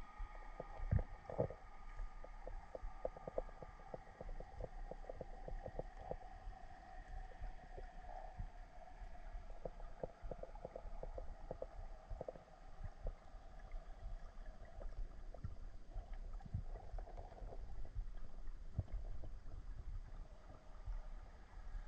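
Underwater sound picked up by a camera in its waterproof housing: many small irregular clicks and crackles over a low rumble, with faint steady tones that slowly sink in pitch.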